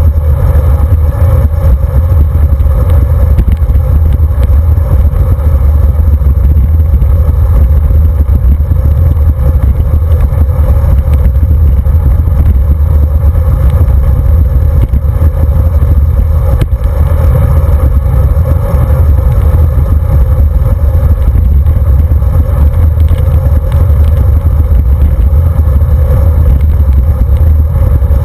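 Loud, steady low rumble of wind buffeting and road vibration on a handlebar-mounted camera on a road bicycle rolling over asphalt.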